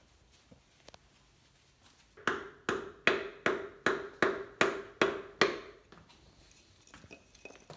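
Hammer striking a wooden block held against a connecting rod, nine sharp blows at about three a second with a short ring after each, driving a piston and rod out of the engine block's bore.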